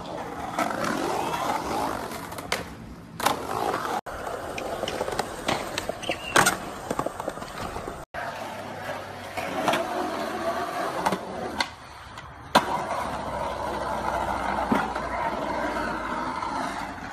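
Skateboard wheels rolling on concrete, with sharp clacks of the board and landings now and then. The sound breaks off briefly about four and eight seconds in, where one clip gives way to another.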